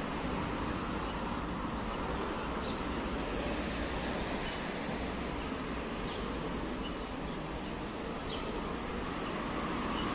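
Steady street ambience: a continuous wash of road traffic noise with a low rumble.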